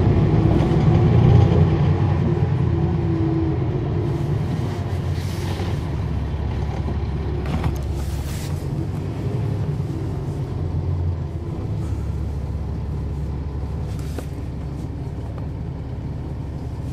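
Cummins ISL9 diesel engine of a NABI 40-SFW transit bus idling with a steady low rumble heard from behind the bus, slowly getting quieter, with two short hisses of air about five and eight seconds in.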